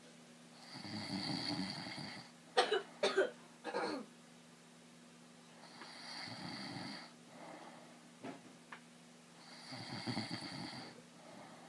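A man snoring in his sleep: three long, rumbling snores about four seconds apart. Between the first two, three short, sharp bursts come in quick succession, the loudest sounds here.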